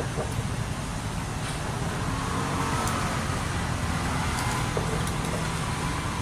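Steady street traffic of motor scooters and cars: a continuous low engine rumble, with one engine note rising and falling a little past the middle and a few faint clicks.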